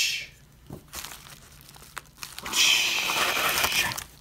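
A plastic padded mailer crinkling as it is handled and worked open: a few light clicks, then about a second and a half of steady crinkling and rustling in the middle.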